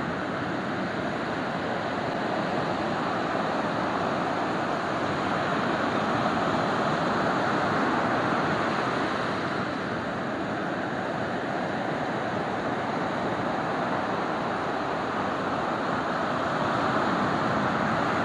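Ocean waves breaking and washing ashore: a continuous rush that swells about six seconds in and again near the end.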